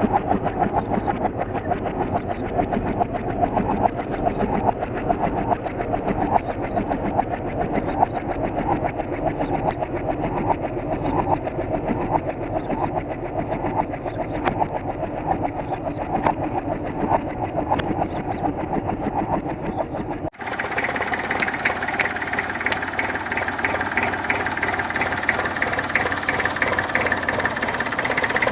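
A vehicle engine running steadily with a fast, even pulsing beat. About 20 seconds in it cuts abruptly to another recording of an engine running, brighter in tone.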